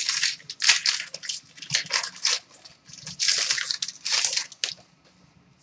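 Wrapper of a Bowman Jumbo baseball card pack being torn open and crinkled, a run of short, irregular crackling bursts that stop shortly before the end.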